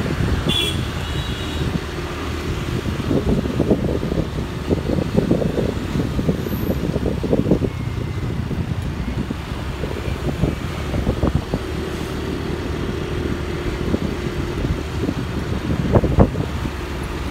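Riding a motorbike through city traffic: steady engine and road rumble with wind buffeting the microphone. A short high beep sounds about a second in.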